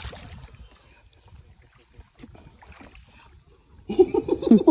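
Faint water sounds and small splashes from a fishing net being hauled in alongside a boat on a river. A man's voice comes in loudly near the end.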